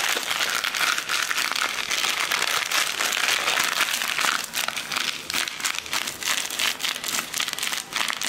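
Plastic pouch of gim (laver) crinkling as it is handled and shaken over a bowl. It makes a dense, crackly rustle full of quick clicks that goes on without a break.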